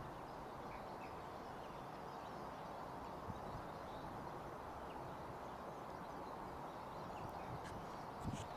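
Faint outdoor ambience: a steady low background rumble, with a few faint bird chirps and a couple of soft knocks near the end.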